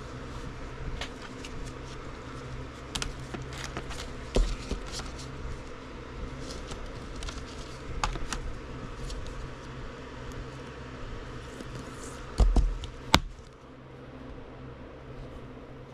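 Trading cards and plastic card sleeves being handled on a tabletop: scattered light clicks and taps, with a louder knock about four seconds in and a few more near the end, over a steady low hum.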